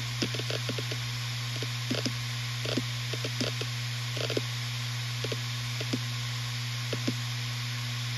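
Western Digital RE 4TB (WD4000FYYZ) 7200 RPM hard drive running: a steady low spindle hum with hiss, and irregular short clicks from the read/write heads seeking, bunched in the first second and then every second or so.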